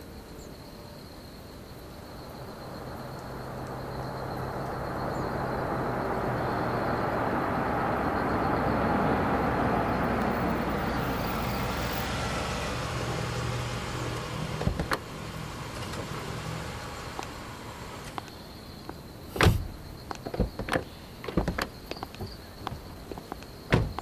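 A vintage sedan drives up, its engine and tyres growing louder over several seconds and then fading as it pulls in and runs low. After that come car-door knocks and clicks: a sharp slam about three-quarters of the way through, smaller clicks, and another slam near the end.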